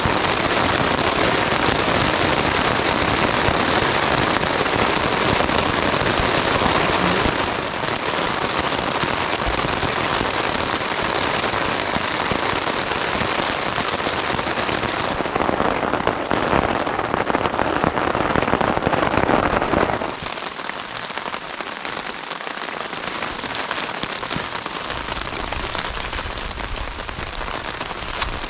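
Heavy rain falling steadily. It eases in steps, once about a quarter of the way in and again about two-thirds of the way in, where the low rumble drops away.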